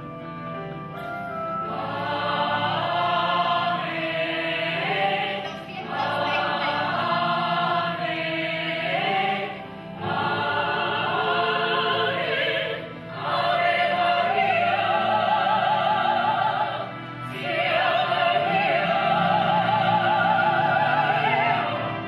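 Operatic singing with a choir: voices sing phrases and hold long notes with a wide vibrato, the phrases separated by brief pauses.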